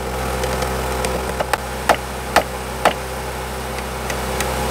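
Chipping hammer striking slag off fresh weld beads on a steel rail: four sharp metallic knocks about half a second apart, over an engine running steadily.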